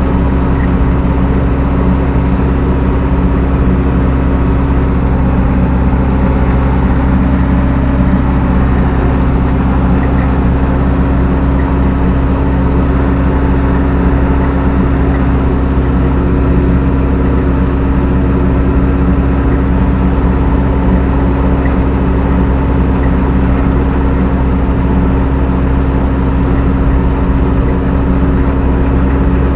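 Zetor 6745 tractor's four-cylinder diesel engine running steadily at an even speed, with no change in pitch, while working with a load of manure.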